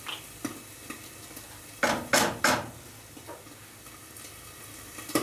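A hand spice grinder rasps in three short, loud bursts about two seconds in as it is twisted, after a few light clicks. Under it, chicken wings sizzle steadily as they fry in a pot.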